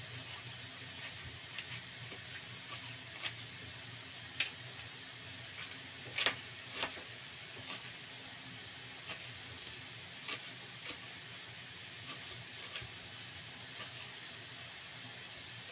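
Knife chopping coriander leaves on a steel plate: sparse, irregular sharp taps, the loudest pair about six seconds in, over a steady hiss.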